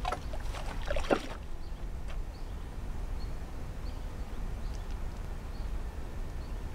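Outdoor riverbank ambience: a steady low rumble, with a few clicks and rustles in the first second or so as a feeder rod is handled, and faint short high bird chirps about once a second.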